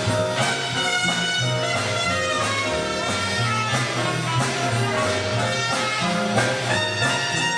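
Big-band swing music played live, saxophones and trumpets over a steadily moving bass line.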